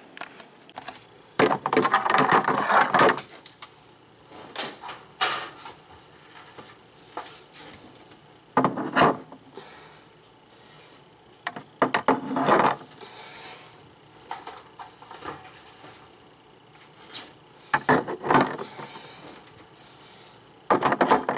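Intermittent knocks, clunks and rustling of groceries and containers being handled and set down while a refrigerator is being organized, with a longer stretch of clatter about two seconds in.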